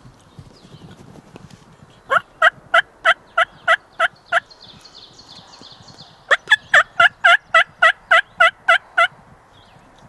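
Wild turkey yelping: two runs of evenly spaced yelps, about three a second, the first of about eight notes and the second, starting about six seconds in, of about a dozen.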